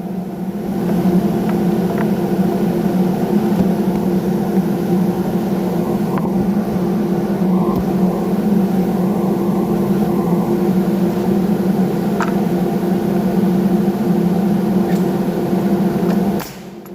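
Electric woodworking machine's motor running at a steady speed with an even hum, shutting off shortly before the end.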